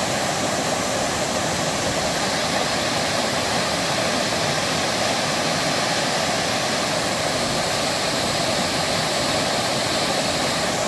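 Waterfall crashing down over rocks into a pool: a loud, steady rush of water.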